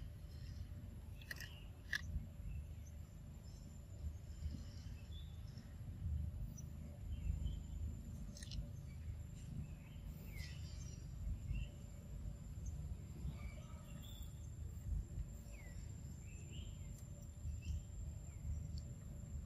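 Pig-tailed macaque chewing and biting a corn cob, with a few sharp crunching clicks, over a steady low outdoor rumble. Faint scattered bird chirps and a steady high insect whine run behind it.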